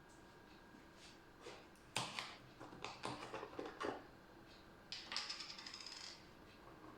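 Clicks and knocks from a milk cooler being handled: a cluster of taps, then a quick rattling run of clicks about five seconds in.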